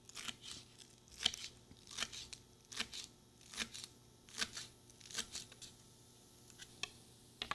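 Chef's knife slicing through green onion stalks onto a cutting board: a steady series of crisp cuts, a little more than one a second.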